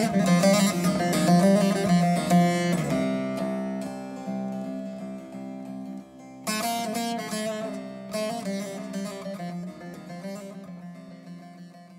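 Instrumental outro of a song: a plucked-string melody with no singing, fading out steadily.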